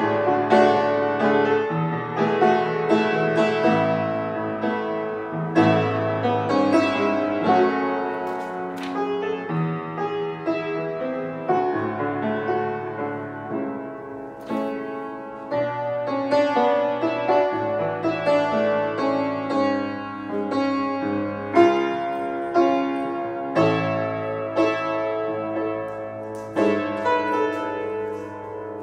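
Upright piano played solo: chords with a melody over them, notes struck and left to ring into one another.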